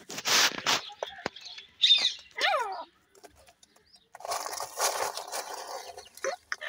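Grey francolin hen and chicks: a burst of scuffling noise at the start, then two quick downward-sliding calls about two seconds in, followed by a longer stretch of scuffling noise.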